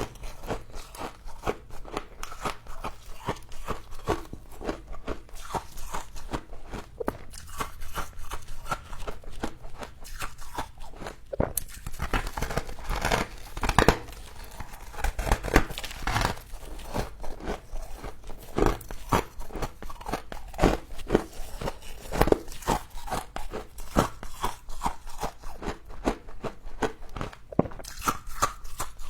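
Close-up crunching and chewing of frost, a dense run of quick crackling crunches, some louder bites standing out.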